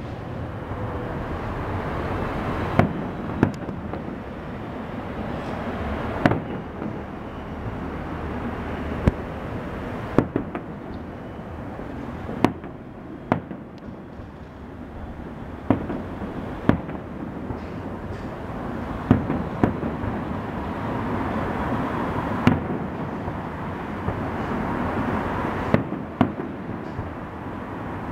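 Distant aerial fireworks display: about fifteen sharp bangs of shells bursting at irregular intervals of one to three seconds, over a continuous wash of noise from further bursts and their echoes.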